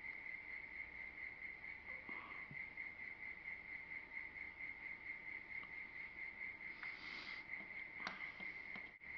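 A faint, steady high pitched trill, pulsing rapidly without a break, with a few faint clicks over it, the clearest about eight seconds in, and a short hiss about seven seconds in.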